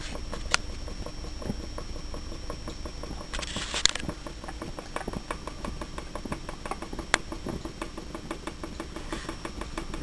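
Moriya Stirling hot-air engine running fast and driving a fan, its moving parts ticking rapidly and evenly as the table under it rattles, with a few sharper clicks along the way.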